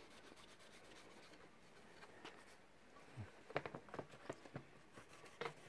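Quiet handling noises: a cloth wiping the metal guide plate of an edge-grinding tool, then from about three seconds in a run of light clicks and taps as the tool is handled. The grinder motor is not running.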